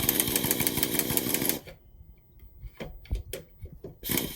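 Pneumatic impact gun with a socket driving the screw of a car's scissor jack, hammering rapidly. It runs for about a second and a half, stops with a few light knocks, and starts again near the end.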